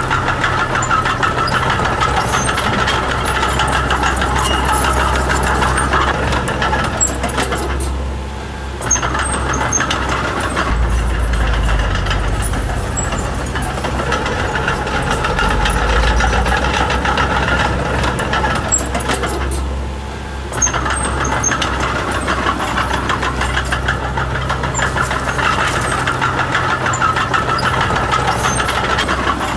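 Komatsu D20P mini bulldozer's diesel engine running under load with a steady clatter. The engine eases off briefly twice, about a third and two thirds of the way through.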